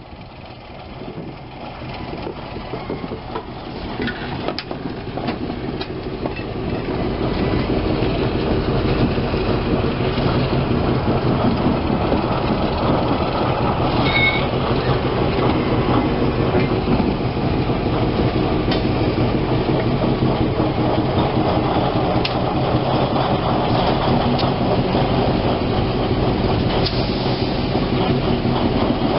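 RENFE diesel locomotive's engine running as it slowly moves a dead steam locomotive along the track. It grows louder over the first several seconds as it draws near, then holds steady, with a few light clanks.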